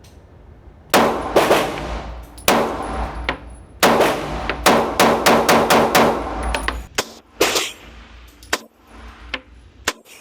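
A semi-automatic pistol fired in a string of about ten shots, spaced unevenly, each report ringing on in the enclosed range. A few sparser, sharper cracks follow near the end.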